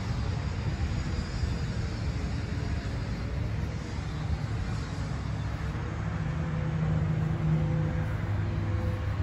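Steady low rumble of motor-vehicle engine noise, swelling slightly about six to eight seconds in.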